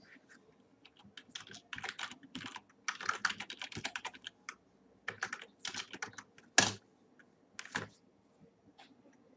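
Typing on a computer keyboard: quick runs of keystrokes with short pauses, one harder key press about two-thirds of the way through, and a last few keys near the end.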